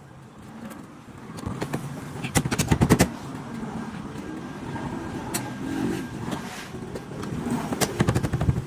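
Hands working at a car's body panels: a quick run of sharp clicks and knocks about two and a half seconds in and another cluster near the end, over a low steady vehicle rumble.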